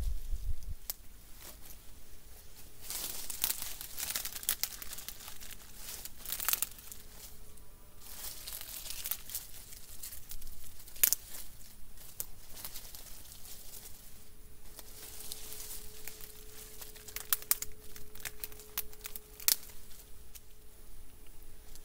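Dry twigs and leaf litter crackling and rustling as gloved hands gather and break small sticks for kindling, with sharp snaps of breaking sticks: one loud snap about halfway through and several more in the later part.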